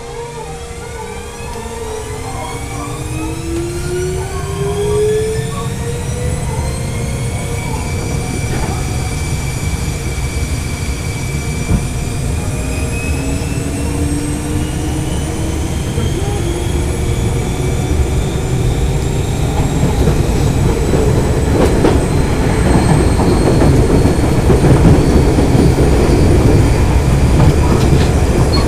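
Toei Shinjuku Line 10-300R electric train car accelerating. The whine of its traction motors and control equipment rises steadily in pitch over the first ten seconds or so, then wheel and rail running noise builds and grows louder as the train gathers speed.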